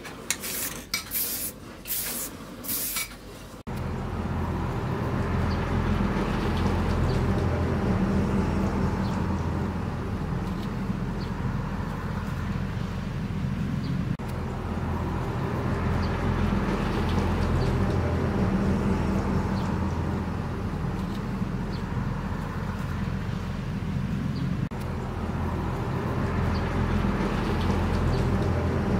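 An aerosol spray can hissing in several short bursts for the first few seconds. Then a steady low engine-like drone with a hum, which runs on unchanged.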